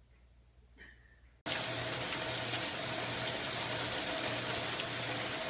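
Near quiet at first, then about a second and a half in, steady rain begins abruptly, falling on a wet wooden deck as an even hiss.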